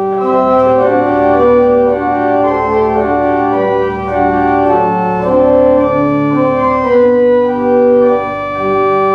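Pipe organ playing a sequence of full sustained chords that change every half second to a second, over a bass note held steady throughout.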